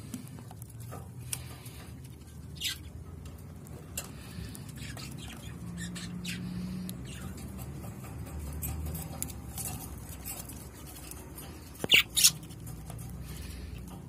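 Budgerigar chicks shuffling and scratching about in a wooden nest box, with scattered small clicks and two loud, sharp sounds in quick succession about twelve seconds in.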